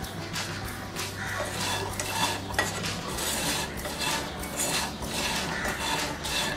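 Raw cashew nuts being stirred and turned with a spatula in a frying pan as they roast in a little oil, a run of scraping, rattling strokes about two to three a second.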